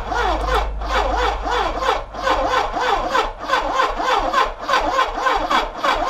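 Electric starter cranking a 1980 Suzuki GSX1100E's 16-valve inline four-cylinder engine, turning it over in a steady pulsing rhythm. This is a spark test on an ignition fault, and no spark reaches cylinder 1.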